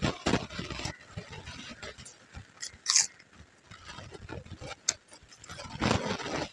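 Close-up eating sounds: chewing and mouth noises while fingers mix rice and vegetables on a steel plate, in uneven bursts, with a sharp click about three seconds in.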